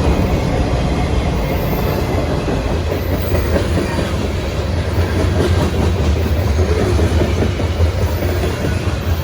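CSX freight train cars rolling past on the rails, a loud, steady, low-pitched noise of wheels on track.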